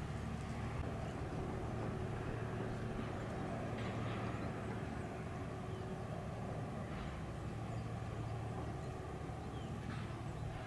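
Steady low machinery hum with a faint steady tone above it. Brief faint chirps come about 4, 7 and 10 seconds in.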